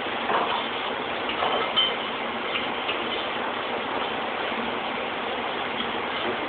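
Steady hum and hiss of factory machinery, with a few light clinks of metal parts being handled.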